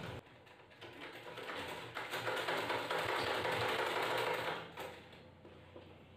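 Merritt sewing machine stitching a seam in cotton fabric: a fast run of needle strokes starting about a second in, lasting roughly four seconds, then stopping.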